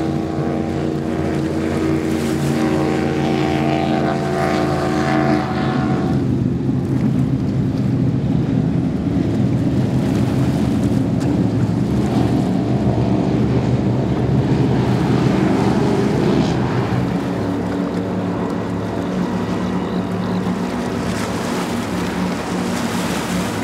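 High-performance powerboats running past at speed one after another, engines over the rush of water off their hulls. A Shockwave passes first; from about six seconds in, a Skater catamaran comes through louder and rougher. Near the end, a Trifecta pontoon's twin Mercury 400R outboards run past with a steadier tone.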